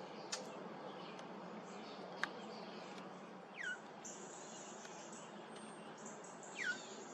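Brown thrasher giving a short downslurred call twice, about three seconds apart, each sliding quickly from high to lower pitch. Two sharp ticks come before the calls, over a faint steady background hiss.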